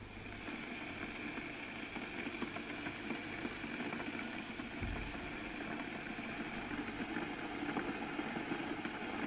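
Electric kettle heating water: a steady rushing noise that grows slightly louder, with a brief low thud about five seconds in.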